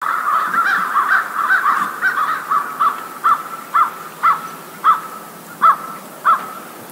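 Gulls calling: a series of harsh calls, quick and overlapping at first, then slowing to single calls about two a second before stopping near the end.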